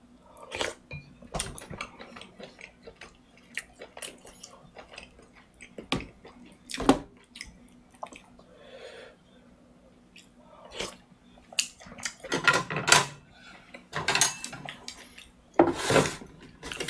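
Eating noodle soup: a wooden spoon scooping broth from a plastic tray and being sipped, with scattered clicks and knocks of utensils. Louder clusters of knocking come about twelve, fourteen and sixteen seconds in.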